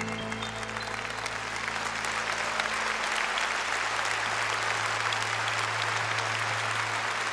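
A large concert audience applauding, the clapping thickening and growing louder after the first second or two, over a low chord held by the band.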